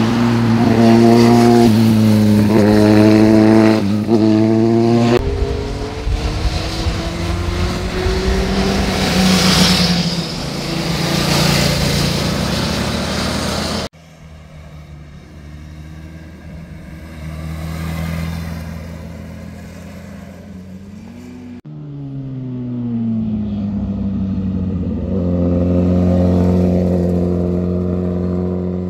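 Motorcycle engines heard one after another as each bike rides through a hairpin bend. The engine note rises with acceleration and drops back at gear changes and on closing the throttle, with sudden changes where one bike's pass gives way to the next.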